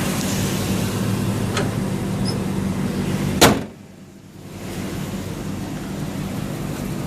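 Truck engine idling with the AC blower running, a faint click, then a vehicle door shutting with a loud bang about halfway through, after which the engine hum is much quieter.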